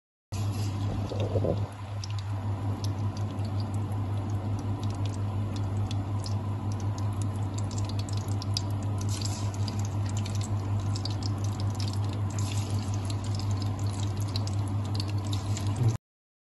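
Masala-coated fish pieces shallow-frying in hot oil in a pan: a steady sizzle with many small irregular crackles and pops, over a constant low hum. Near the start another piece is laid into the oil, briefly louder about a second in.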